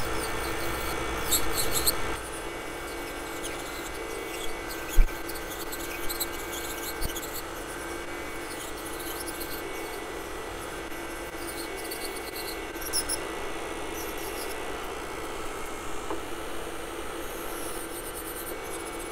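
Urawa G3 electric nail drill (e-file) running with a sanding bit, grinding old gel polish off fingernails with a scratchy rasping, over a steady motor hum. A few brief knocks come a few seconds in.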